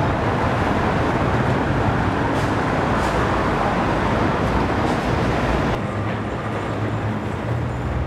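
Steady traffic noise: an even rumble and hiss with a low hum underneath, dropping slightly about six seconds in.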